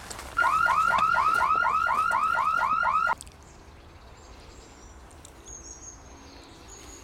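Electronic alarm siren sounding a fast run of identical up-and-down chirps, about four a second, loud, for under three seconds before it cuts off suddenly. Faint high bird calls follow.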